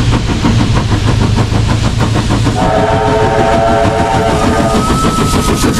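Heritage steam train running with a fast, even rhythmic beat. About halfway through its whistle sounds as a chord of several notes, giving way to a single higher note held on near the end.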